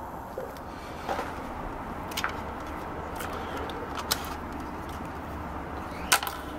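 A handful of short sharp clicks and taps as multimeter test probes are pulled from a battery charger's terminals and handled, the loudest near the end, over steady low background noise.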